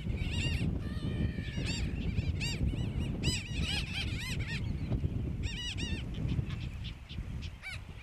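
Seabird colony calling: many short, high, arched calls from several birds overlap in quick runs, thinning out in the last couple of seconds. Wind rumbles on the microphone underneath.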